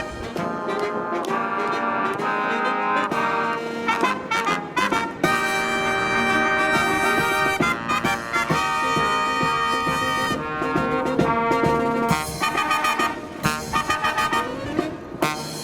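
Marching brass band, with trumpets and trombones, playing a lively tune that moves between short repeated notes and longer held chords.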